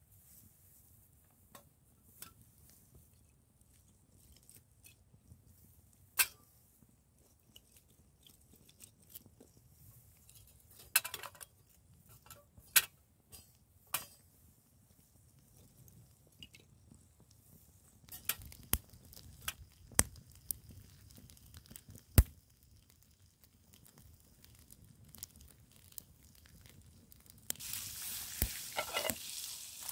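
Kindling sticks clicking and knocking as they are handled and dropped into a small folding metal wood stove while a fire is started in it. Near the end, a steady sizzle of food frying in a pan begins.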